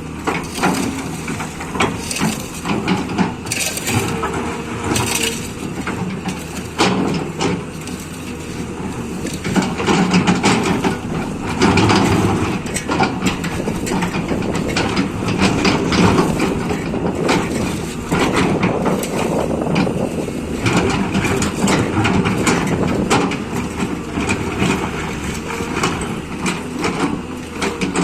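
Liugong 920D excavator working: its diesel engine runs steadily under many irregular knocks, clanks and crunching sounds, loudest from about ten seconds in.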